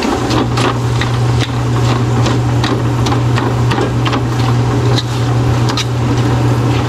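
A metal ladle clacking and scraping against a steel wok as it crushes frying tofu, in quick irregular strokes, over a steady low hum.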